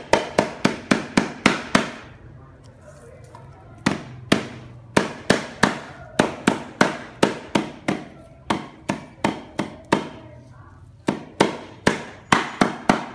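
A wooden pestle pounding lemongrass stalks on a round wooden chopping block to bruise them, a run of sharp thuds at about three to four blows a second. The pounding stops twice, for about two seconds and then for about a second, before going on.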